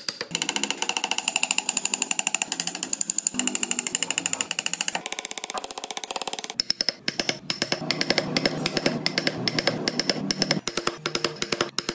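Small carving chisel cutting into hardwood, making a rapid, steady run of ticks and scraping that changes as the cut shifts several times.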